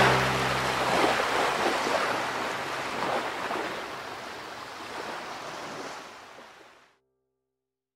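Rushing, surf-like noise of ocean waves, fading steadily away to silence about seven seconds in. The last low note of the music dies out in the first second.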